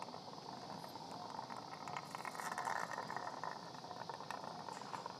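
Surgical suction running, a steady low hiss as the suction tube draws blood and fluid from the open chest.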